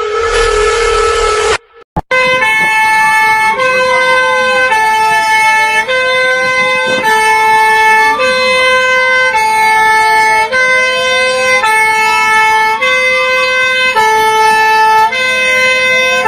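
Emergency alert (EAS-style) alarm: a harsh buzzing burst that cuts off after about a second and a half, then, after a brief dropout, two alternating tones switching about once a second with a siren wail rising and falling slowly underneath.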